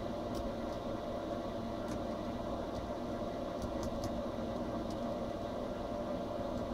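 A steady machine hum with constant tones and a low rumble, and a few faint ticks.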